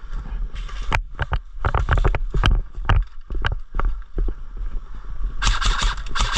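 Airsoft guns firing single shots at an irregular pace: a string of sharp clicks and knocks, with three short bursts of hiss, about half a second in, around two seconds and near the end.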